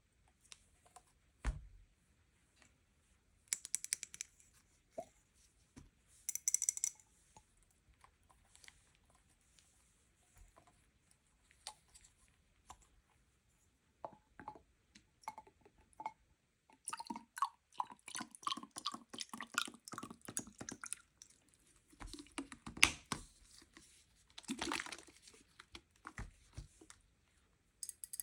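Sweets and toy packaging being handled and opened: scattered clicks and taps, with short bursts of crinkling and tearing. The rustling becomes dense and busy in the second half.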